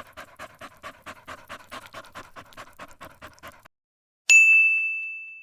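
A Labrador panting fast and evenly, a little under five breaths a second, stopping abruptly. About a second later a single bright bell-like ding rings out, loudest of all, and fades away.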